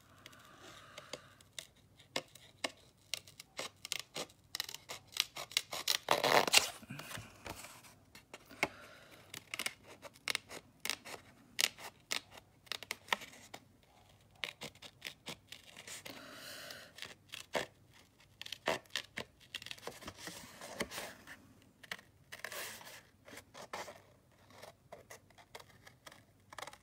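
Small Tim Holtz craft scissors snipping paper in many short cuts while cutting out a stamped image. The paper sheet rustles louder as it is handled about six seconds in.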